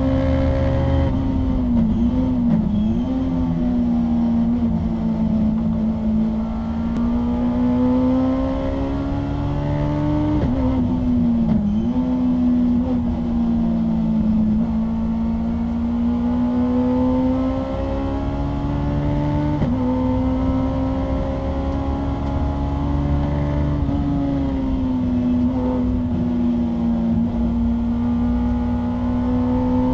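Honda S2000's 2-litre four-cylinder race engine heard from inside the cabin, running hard at high revs. Its note wavers and dips with braking and downshifts a couple of seconds in and again around ten seconds. It then climbs as the car accelerates out of the corners, with sudden drops at upshifts later on.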